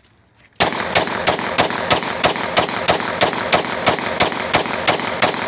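A 30 bore (7.62×25mm Tokarev) 20-shot pistol fired in a steady rapid string of about fifteen shots, about three a second, starting about half a second in and stopping just before the end.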